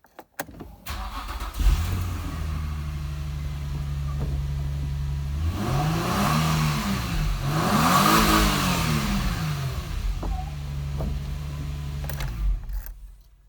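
An engine idling, revved up and back down twice in the middle, then settling back to idle before fading out near the end.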